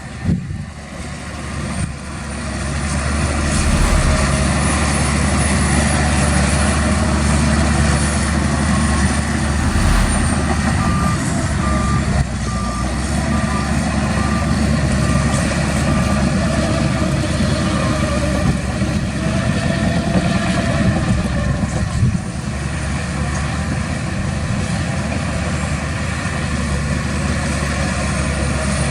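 Heavy diesel earthmoving machinery running steadily, growing louder about three seconds in. Partway through, a reversing alarm beeps repeatedly for several seconds as a machine backs up.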